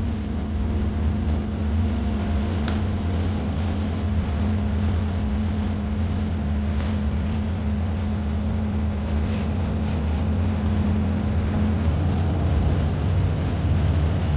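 Machinery running steadily: a low drone with a constant hum, and a few faint clicks.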